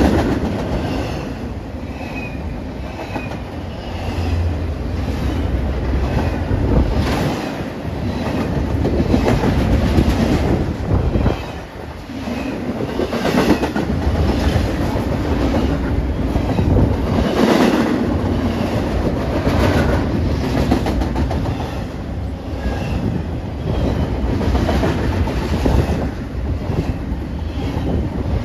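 Double-stack intermodal freight cars rolling past close by: steel wheels on rail rumbling steadily and clacking over rail joints.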